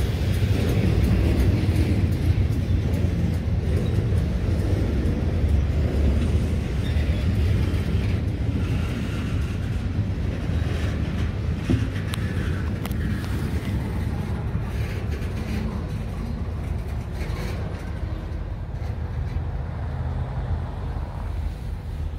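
Low, steady rumble of passing vehicles, slowly fading away.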